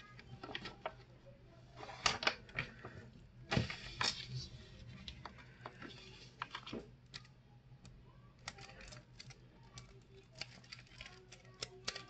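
A Yu-Gi-Oh structure deck's cardboard box and plastic-wrapped cards being handled: scattered clicks, taps and rustles, with a few louder knocks about two and three and a half seconds in, and quick small ticks near the end.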